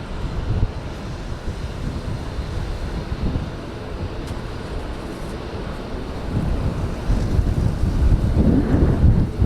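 Wind buffeting the microphone: a low, steady rumble that grows louder near the end.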